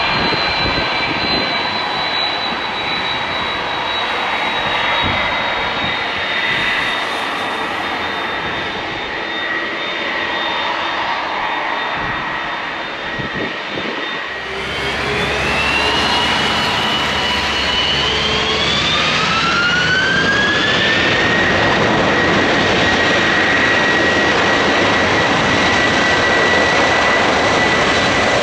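Airbus A330-200's twin jet engines whining at low power as the airliner turns on the runway, then spooling up about fifteen seconds in: the whine climbs in pitch over several seconds and holds steady at high thrust as the take-off roll begins.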